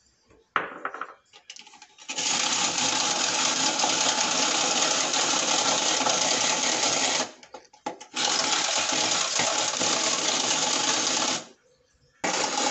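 Hand-cranked rotary egg beater whirring and rattling as its blades whip eggs in a glass bowl. It runs in three spells of cranking, about five seconds, then three, then starting again near the end, with short pauses between. It is very loud.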